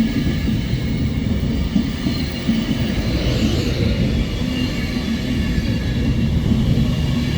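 A train running past at a station: a steady, loud rumble from the wheels and running gear, with faint high-pitched tones held over it.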